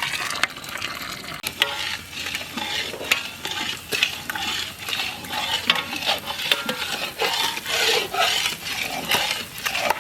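A spatula stirring and scraping food around a pan of sizzling hot oil, with a scrape or knock about twice a second over a steady sizzle.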